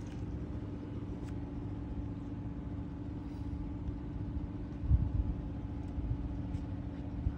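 An engine running steadily with an even, low hum. A brief low thump comes about five seconds in.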